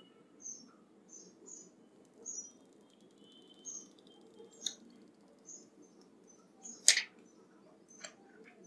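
Small birds chirping in short, high, repeated calls, some dropping in pitch, over a low steady hum, with light handling clicks and one sharp tap about seven seconds in.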